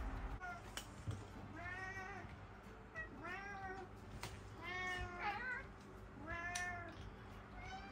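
Domestic cats meowing, about four separate meows that each rise and fall in pitch, with a few light clicks between them. The cats are begging for the kibble being handed out at the table.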